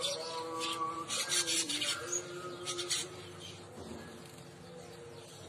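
Caged weaver bird (manyar) singing in wheezy, rasping buzzes, in three bursts over the first three seconds, then quieter.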